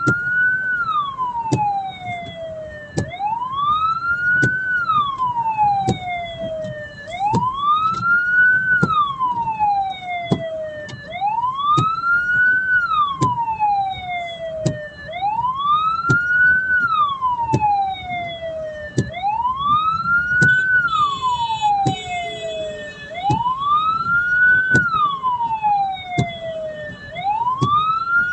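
Hearse siren wailing in a slow cycle, about once every four seconds: each wail rises quickly and falls away slowly. Sharp clicks recur under it.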